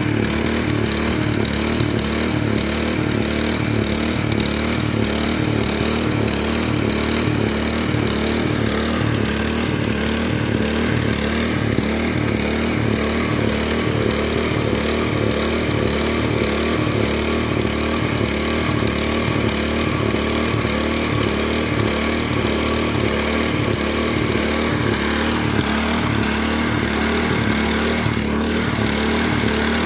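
Small engine of rail-weld finishing equipment running steadily under load, with a fast, even pulse, powering the weld trimming and grinding work on a fresh rail weld.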